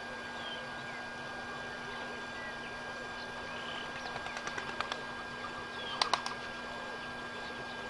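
Outdoor ambience: a steady hiss with a constant high tone and a low hum, and faint, scattered small bird chirps. About four seconds in comes a run of light clicks, and about six seconds in three sharp clicks, the loudest sounds here.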